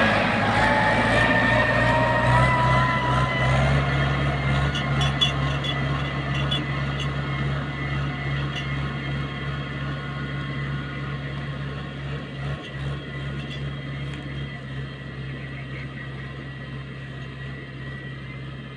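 Mahindra 575 DI tractor's four-cylinder diesel engine running steadily, growing gradually fainter, with a higher whine rising in pitch over the first few seconds.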